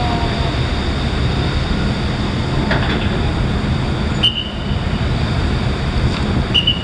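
A steady low rumble, with two brief high chirps, one about four seconds in and one near the end.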